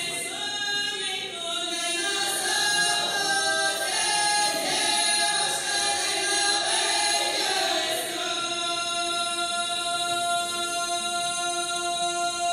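A group of voices singing together in harmony, their lines moving from note to note, then settling about eight seconds in onto one long held note.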